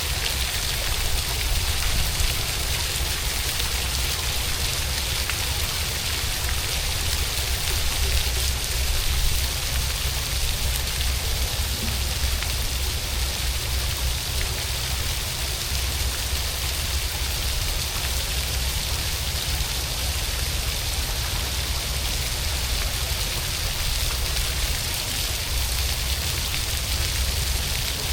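Steady rain falling and pattering on wet surfaces, with a constant low rumble underneath.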